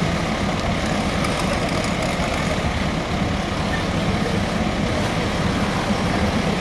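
Fire engine running steadily with a low drone, its engine driving the pump that feeds the hose lines.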